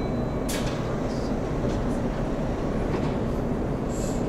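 Keihan electric train moving through an underground station platform: a steady rumble of wheels and running gear, with a short hiss about half a second in and another near the end.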